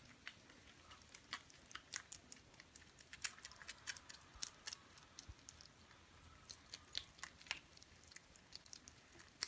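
Kittens eating from their bowls: faint, irregular little clicks and smacks of chewing.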